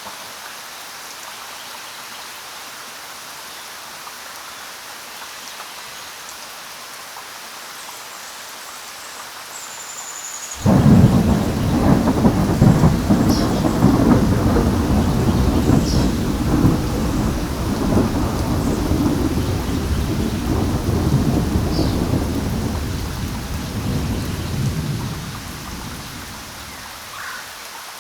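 Steady rain falling, then about ten seconds in a loud clap of thunder breaks and rolls on in a long rumble for roughly a dozen seconds before fading back to the rain.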